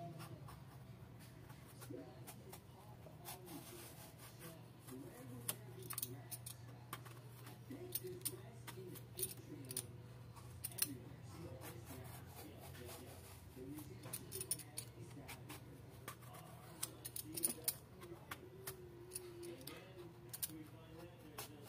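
Irregular, sharp light clicks and taps from hands working over a wooden cutting board during food preparation, over a steady low hum, with faint voices in the background.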